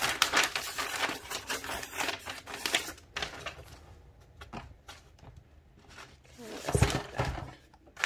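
A sheet of paper rustling and crinkling as hands press and smooth it flat, busiest in the first three seconds. About seven seconds in comes a thump with more crinkling.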